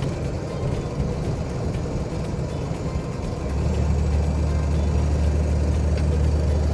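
Box truck engine and road noise heard from inside the cab while driving. About three and a half seconds in, a deep steady engine drone comes up louder and holds.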